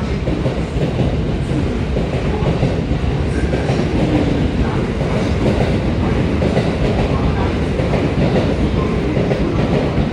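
Electric commuter train running on the rails through the station: a steady, loud rumble with wheel clatter over the rail joints.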